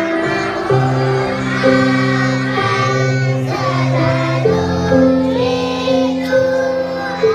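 A children's song: a group of young children singing along to recorded backing music with long held chords.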